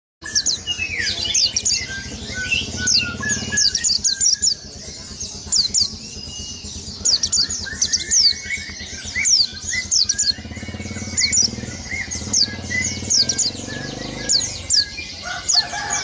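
White-eye (pleci) singing a fast, continuous run of high, thin, down-slurred chirps with softer warbling notes mixed in: the rolling 'ngeroll' song, sung with the beak open.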